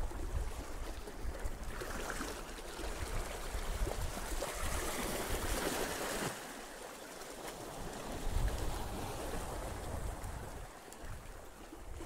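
Sea water washing and sloshing over shore rocks, with a louder hissing surge of a small wave breaking over the ledge about halfway through. Wind rumbles on the microphone underneath.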